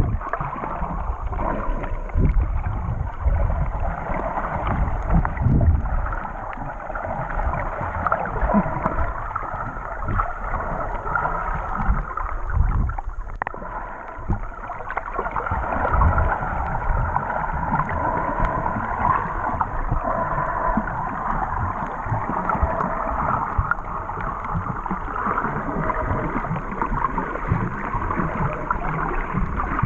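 Muffled water sloshing and gurgling heard through an underwater camera, with irregular low thumps.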